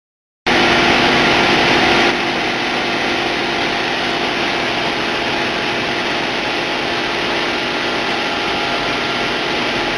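Diamond wire saw running while cutting: a steady machine noise with a few constant hums in it. It comes in abruptly about half a second in and drops slightly in level about two seconds in.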